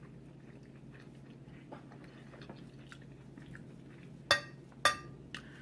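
Quiet mouth and table sounds of someone eating: soft chewing and small scattered clicks, then two sharp clinks about half a second apart near the end.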